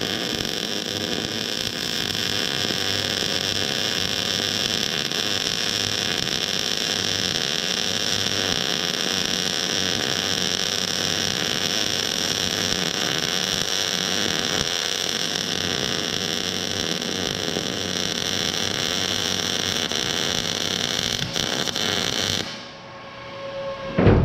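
Electric welding arc crackling and hissing steadily through one long bead, then cutting off suddenly near the end, followed by a short loud noise.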